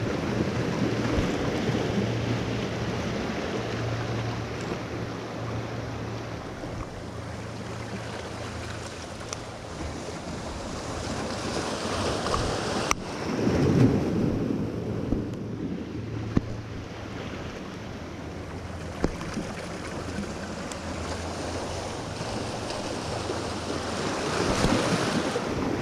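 Surf washing over the boulders of a rock jetty, with wind buffeting the microphone. The wash swells about halfway through and again near the end, and a single sharp click sounds just before the first swell.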